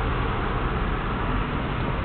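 Steady city street noise: a flat hiss with a low rumble of distant traffic, and no single vehicle standing out.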